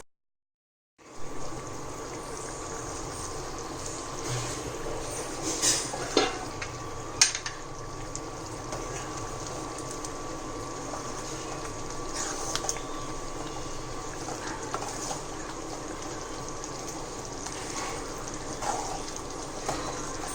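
Kulambu (tamarind-based gravy) bubbling steadily in a pan on the stove, with a few sharp clinks of a utensil about six and seven seconds in.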